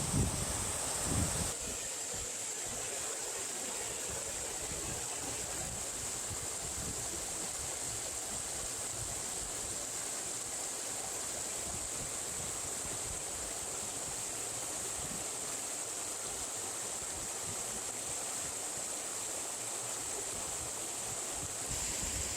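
Valley stream flowing: a steady rush of water. Wind buffets the microphone for the first second or so.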